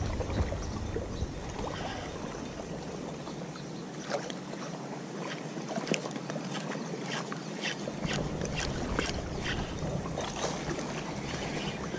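Water lapping and sloshing in the wind, with scattered short, sharp taps through the middle.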